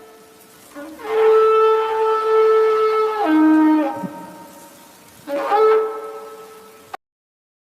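Dinosaur call sound effect: horn-like honks. A long honk begins about a second in, holds one pitch and then drops near the end, and a shorter honk follows about five seconds in. The sound cuts off abruptly to silence just before the end.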